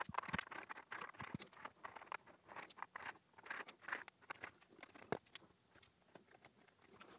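Small screws being backed out of the back of a Commodore 64 keyboard with a screwdriver and set down on the table: faint scratching and light clicks, with one sharper click about five seconds in.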